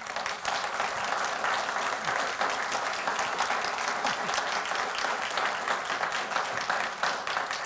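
Audience applauding steadily, many hands clapping at once, in response to the closing of a speech.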